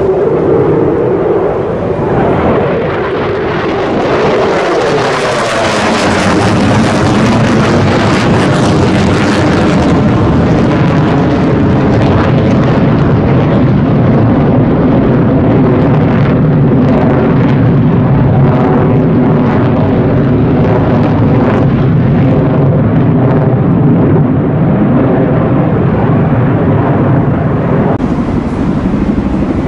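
Low-flying military aircraft passing overhead: loud, continuous engine noise whose pitch drops over the first few seconds as it goes by, then stays loud and steady.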